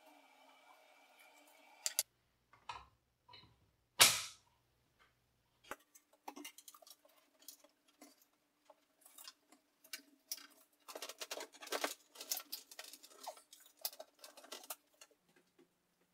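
Hand-work noises from fitting dust-collection ducting and hose: a single loud knock about four seconds in, then a run of scattered clicks, taps and rattles, busiest in the second half, over a faint steady hum.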